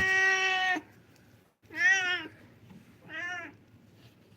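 Domestic cat meowing three times: a long, level meow, then two shorter meows that rise and fall in pitch, the last one quieter.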